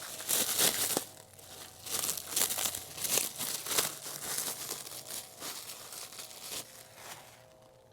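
Plastic packaging being crinkled and torn open by hand, in irregular crackling bursts that die away near the end.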